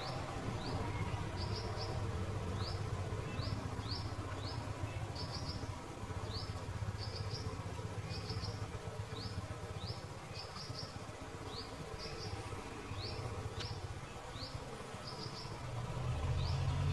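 Short high-pitched chirps repeating about twice a second, some single rising notes and some quick clusters, over the low hum of idling vehicle engines. The engine sound grows louder near the end.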